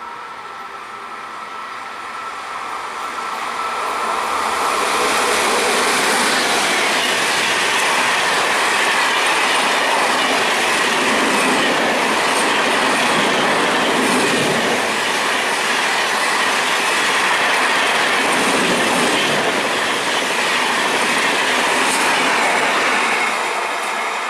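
Indian Railways express passenger train running past at speed. It builds over the first few seconds, stays loud and steady with the rush of wheels on rails for most of the pass, then starts to fade near the end.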